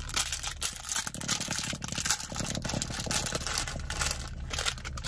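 Plastic candy wrapper crinkling and crackling as it is torn open and handled, a dense run of rapid crackles.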